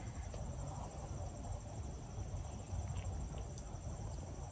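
Insects trilling steadily in two high, unbroken tones, over a constant low rumble.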